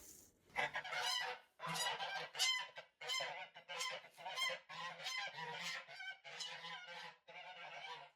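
Domestic geese honking over and over, a quick steady string of separate calls, about two a second.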